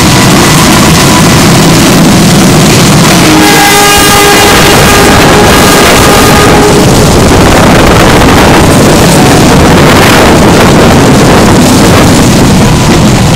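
Passenger train running at speed, heard from an open window: loud rushing wind buffeting the microphone over the rumble of the wheels on the rails. About three seconds in, a long pitched tone with several overtones sounds for about three seconds and fades away.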